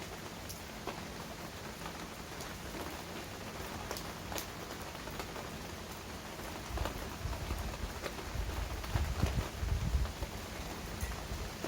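Heavy rain falling steadily, with single drops striking close by in sharp ticks. About halfway through, a low rumble swells up under the rain and fades again near the end.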